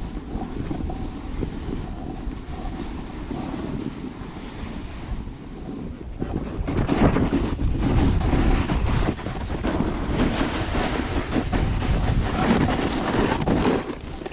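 Wind rushing over the camera microphone of a skier moving downhill, with the hiss and scrape of skis on snow mixed in. It grows louder about halfway through.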